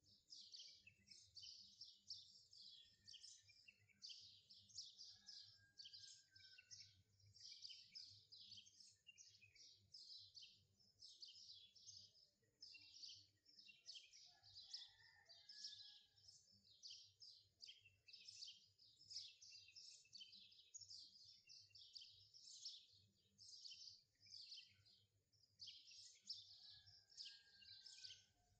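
Faint bird chirping: many short high chirps several times a second without a break, with an occasional lower whistled note.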